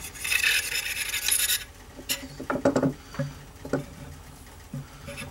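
An oily rag wiped along the steel magazine tube of a Winchester 94 lever-action rifle: a hissy rub lasting about a second and a half, followed by a few light knocks and clicks as the parts are handled.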